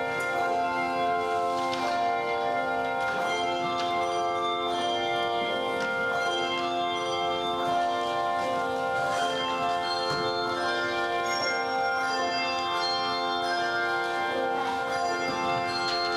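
Instrumental church music: held chords with rich overtones that change every second or two at a steady, even loudness.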